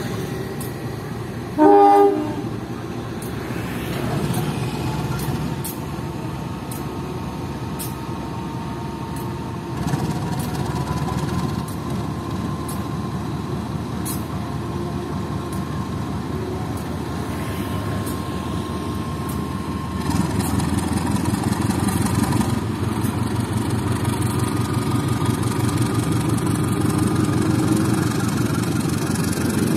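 A KAI CC 201 (GE U18C) diesel-electric locomotive sounds one short horn blast about two seconds in, then its diesel engine runs steadily. The engine gets louder about two-thirds of the way through as the locomotive throttles up and pulls away with its wagons.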